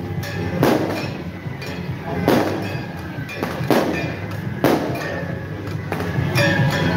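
Fireworks going off with a sharp bang every one to two seconds, about five times, each trailing off in a low rumble, over steady drum-and-gong procession music.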